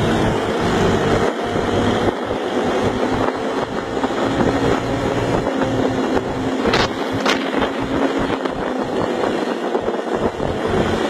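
Single-cylinder ATV engine running at a steady pace, its note held level under a rushing haze of road and wind noise. Two short sharp noises about seven seconds in.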